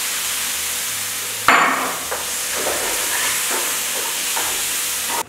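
Minced meat and tomato puree sizzling in a hot frying pan while a plastic spatula stirs and scrapes through it. A sharp knock about a second and a half in sets off a louder burst of sizzling, and the sound cuts off suddenly near the end.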